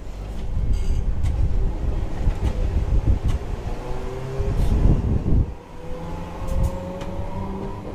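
Toyohashi Railway type 3200 tram heard from inside the car, running with a heavy low rumble from wheels and running gear. A motor whine rises slowly in pitch over the second half as the tram gathers speed.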